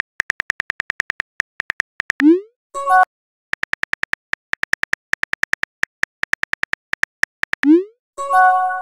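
Simulated phone keyboard clicking, about nine key clicks a second, as messages are typed in a texting app. Twice the typing stops for a short rising swoosh of a message being sent, followed by a brief pitched tone.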